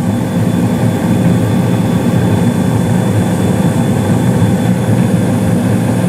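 2016 Carrier single-stage gas furnace running in heat mode, heard close to the lit burners: a steady low rumble with a faint steady whine over it. The burners are burning a steady blue, the sign of a furnace in good shape.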